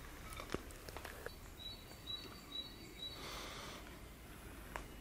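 Quiet outdoor ambience: a small bird chirping in short repeated notes, with a few light clicks or knocks, the loudest about half a second in, and a brief rustle a little past the middle.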